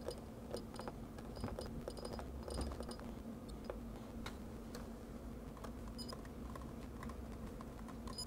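Computer keyboard keys being typed in irregular runs of clicks, over a steady low electrical hum.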